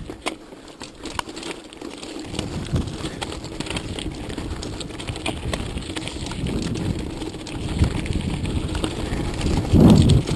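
Mountain bike riding over a rough, stony track: rattling and clicking from the bike and tyres over a low rumble, which grows from about two seconds in. There is a loud low buffet near the end.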